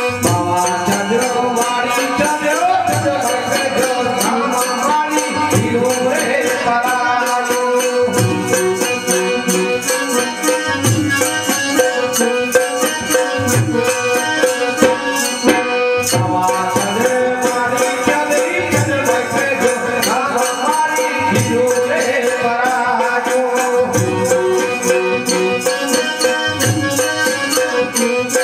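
Instrumental passage of Kutchi folk music: a melody instrument over fast, steady rattle-like percussion, with a low drum stroke about every two and a half seconds.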